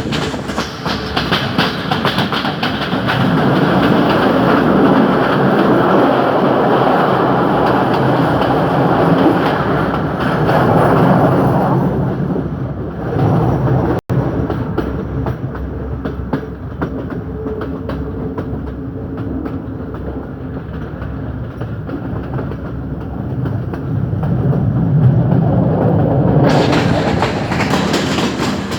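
Train running along the track, with a steady rumble and rattle of wheels over the rails. About halfway through it turns quieter and duller for a while, then comes back up near the end.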